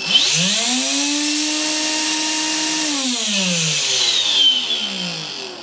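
Electrolux Ergorapido Lithium vacuum fan motor spinning up with a rising whine, running steadily for about two seconds with a loud grinding hiss, then switched off and winding down in falling pitch. It sounds like an angle grinder, which the owner puts down to rough bearings after the fan had slipped off its brass mount.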